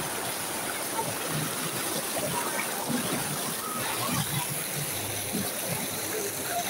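Water of the Río Torrox running over rocks: a steady rushing.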